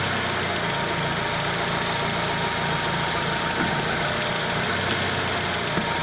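Honda CR-V engine idling steadily, heard from under the hood while the steering wheel is turned, with a faint click near the end. The clicks on turning the wheel were first suspected to be a worn strut top mount bearing, which the owner concludes they are not.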